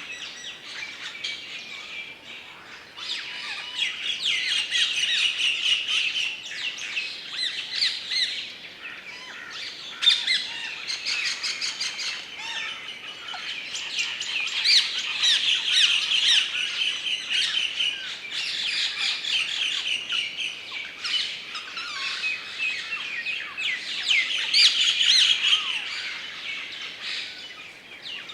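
Several songbirds chirping and warbling together in dry deciduous woodland, in busy swells of quick high notes.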